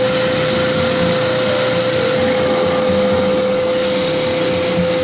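An electric woodworking machine running steadily, with a constant whine over a loud, even noise and a faint high whistle joining about three seconds in.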